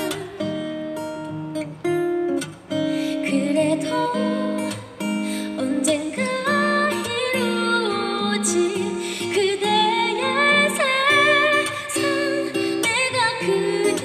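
A woman singing into a microphone over strummed acoustic guitar; her held notes waver with vibrato in the second half.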